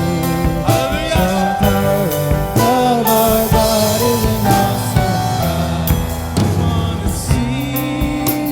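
Church praise band playing a worship song: a sung melody over a full band with drum kit and cymbals, steady and loud.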